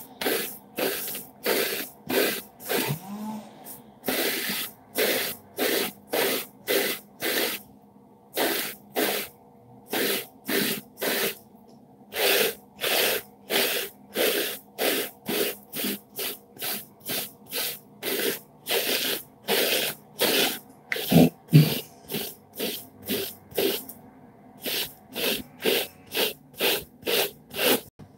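Hairbrush strokes through short, conditioner-coated curly hair close to the microphone: a quick run of sharp hissing swishes, about two a second, with a few short pauses.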